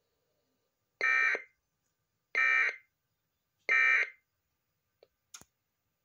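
Emergency Alert System end-of-message (EOM) code sent by a Sage EAS ENDEC: three identical short bursts of buzzy digital data tones, evenly spaced, closing the test alert. A faint click follows near the end.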